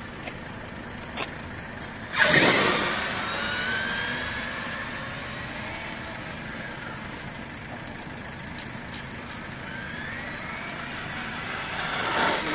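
Traxxas E-Revo 2.0 RC monster truck launching about two seconds in with a sudden loud burst of noise, then an electric motor whine rising in pitch and fading as it speeds away. Near the end a rising whine returns and grows louder as the truck drives back.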